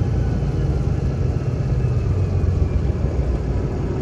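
Semi-truck diesel engine running steadily with a low, even rumble.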